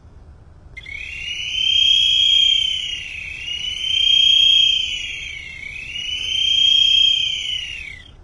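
Boatswains' calls (bosun's pipes) piping the naval salute to the flag as it is lowered. A high, shrill whistle swells and falls in three long arcs of about two to three seconds each.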